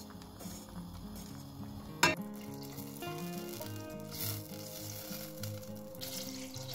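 A sharp clack about two seconds in, then food sizzling as it fries in hot oil in a pan, over background music.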